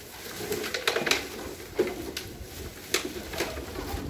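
A child's scooter rolling over brick paving, its small wheels giving a run of uneven sharp clicks and knocks.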